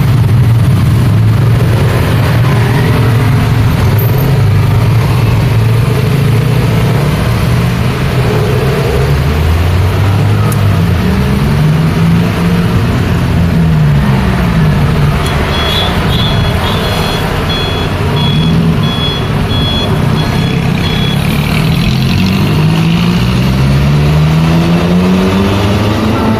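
Busy road traffic with trucks and cars passing close, engines running and pulling away. Past the middle, a string of short high beeps sounds about twice a second for several seconds, and near the end a vehicle's engine rises in pitch as it accelerates.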